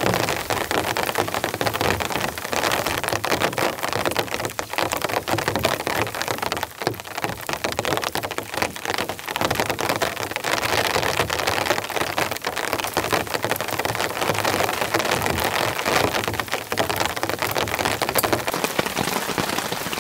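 Heavy rain falling steadily: a dense, even hiss of countless drops striking the ground and foliage.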